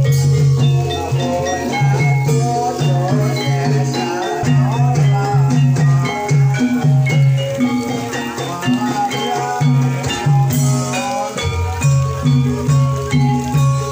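Javanese gamelan music for a kuda kepang (ebeg) dance. A steady pulse of low strokes runs under many ringing pitched metal notes.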